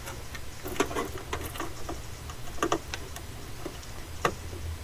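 A few scattered light clicks and taps from handling a USB 3.0 front-panel cable connector and fitting it onto the motherboard header.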